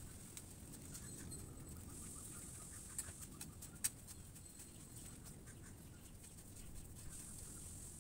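Faint outdoor ambience: a steady high hiss with scattered light clicks, and two sharper taps about three and four seconds in.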